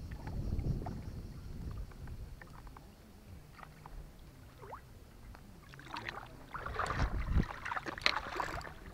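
Footsteps crunching and rustling over sand and dry grass, starting about six seconds in, after a low rumble and a quieter stretch.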